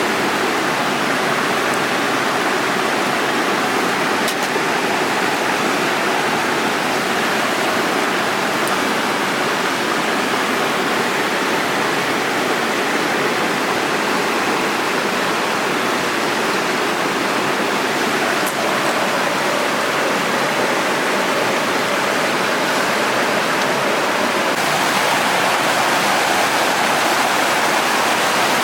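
Mountain stream in a gorge rushing steadily.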